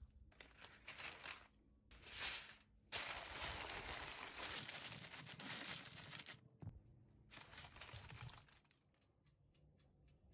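Aluminium foil crinkling as it is handled and pressed over a baking dish. It comes in several bursts, the longest and loudest about three seconds in, and dies down to a few light clicks near the end.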